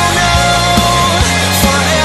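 Background music: a worship song with a steady drum beat about twice a second under held melodic notes, with no singing in this stretch.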